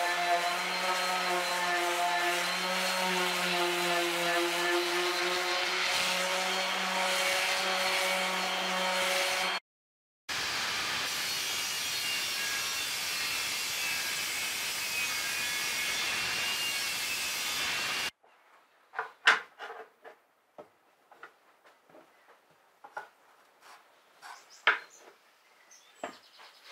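An electric random orbital sander runs steadily on oak boarding for about ten seconds. After a break, a table saw rips a thin wooden strip for about eight seconds. Then come scattered light knocks and clicks of wooden strips being handled and laid on a bench.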